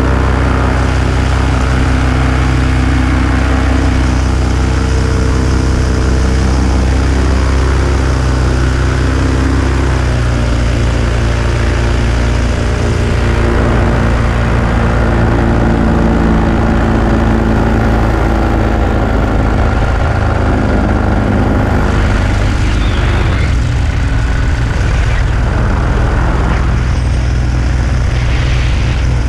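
Small aircraft engine and propeller running steadily close by, heard from on board, with its pitch shifting about ten seconds in.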